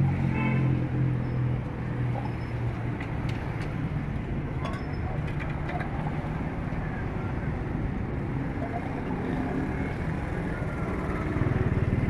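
Street traffic noise with a vehicle engine running close by. Its low hum is strongest at the start and again near the end, and a few faint clicks come a few seconds in.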